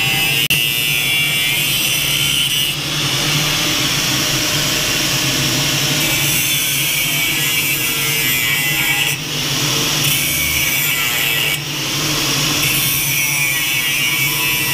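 Makita angle grinder running at full speed, its disc cutting into a metal bracket held in a bench vise: a steady loud whine and hiss of the disc on metal, dipping briefly three times.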